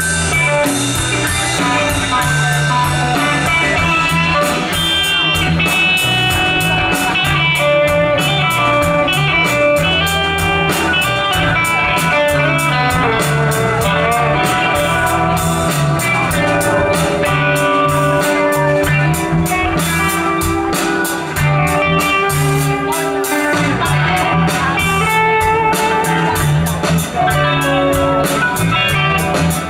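Live rock band playing an instrumental passage: electric guitars over bass guitar and drum kit, with no singing.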